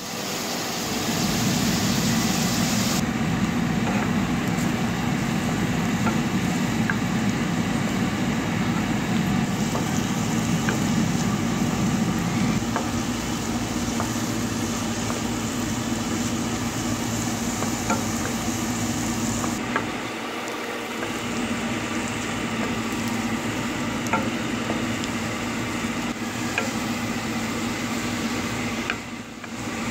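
Chopped onion, garlic, spices and chicken frying in oil in a nonstick wok, sizzling steadily while a wooden spoon stirs and scrapes them, with light ticks of the spoon against the pan.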